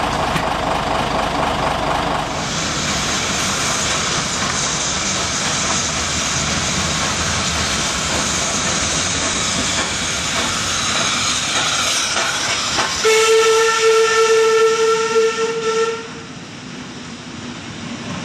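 Coal-fired steam locomotive Guadix hissing steam as it works, then sounding its steam whistle: one steady call of about three seconds, starting about two-thirds of the way in and louder than the hiss, after which the sound falls away.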